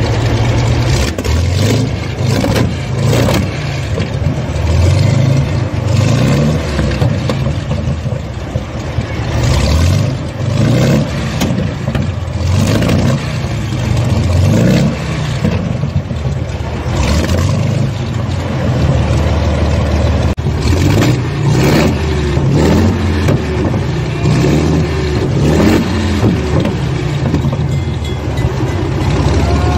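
27-litre Rolls-Royce Merlin-family V12 running in a vintage special, blipped repeatedly: the revs rise and fall every few seconds and settle back to idle between.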